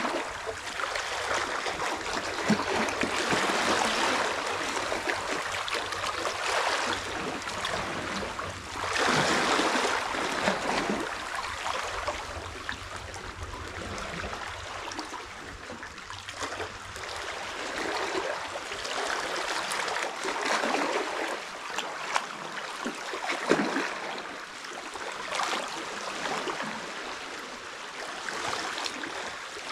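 Small sea waves lapping and trickling among shoreline rocks, swelling and easing every few seconds.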